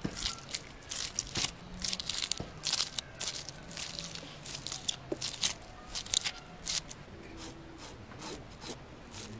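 Knife blade scraping the scales off a large grass carp (Amur) on a wooden chopping block: a quick, irregular run of short rasping strokes, one or two a second, with scales crunching off.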